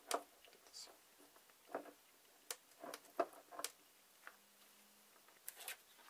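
Faint, irregular clicks and light knocks of metal on metal as the threaded metal collar on top of a dental X-ray head's shell is turned and handled by hand, with a quick cluster of clicks near the end.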